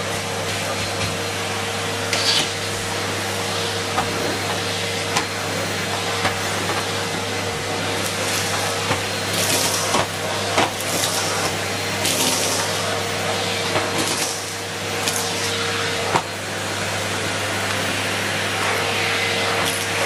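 Numatic Henry Turbo cylinder vacuum cleaner running steadily with a constant motor hum, its floor tool working over carpet, with irregular clicks and rattles as cornflakes are sucked up. The hum dips briefly about three-quarters of the way through.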